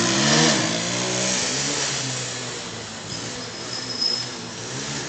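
Small sport motorcycle's engine revving as it rides off, its pitch rising and dropping in the first second, then a steadier engine note that grows fainter as the bike moves away.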